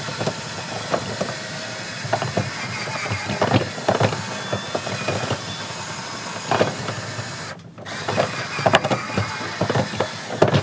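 Scraping and knocking inside a clogged dryer vent duct as it is cleared out, over a steady mechanical hum. The sound breaks off briefly about eight seconds in.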